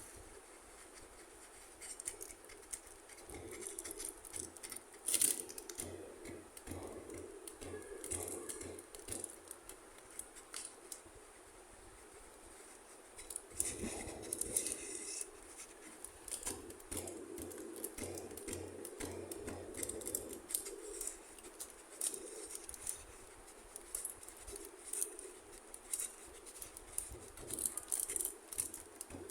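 Small plastic toy pieces being handled: irregular light clicks and taps with soft rustling, busier in the second half.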